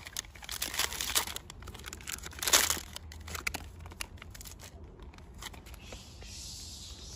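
Plastic snack wrapper crinkling and tearing as a macaque pulls it open and takes out a small cake, loudest about two and a half seconds in. The crinkling stops about five and a half seconds in.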